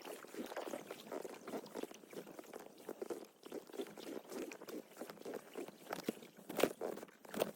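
Water splashing and dripping around a kayak being paddled, with a couple of sharp knocks near the end.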